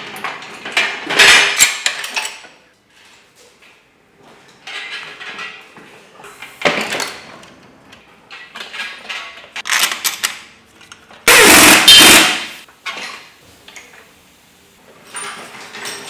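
Workshop engine crane and engine stand clanking and rattling as an engine is hoisted off the stand. The sound comes as several separate bursts of metal knocks and rattles with quiet gaps between them, the loudest a long clatter a little past the middle.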